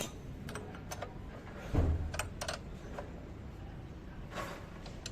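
Light metallic clicks and clinks of hand tools and motorcycle parts being handled, with one dull thump about two seconds in.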